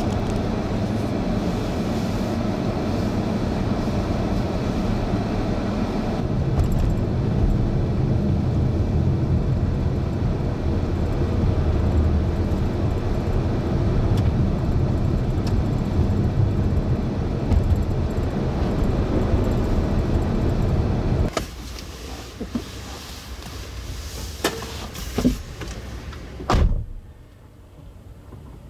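Steady road and engine noise of a car being driven, a low rumble with hiss on top. About three-quarters of the way through it drops off suddenly to a quieter background, with a few clicks and a single thump.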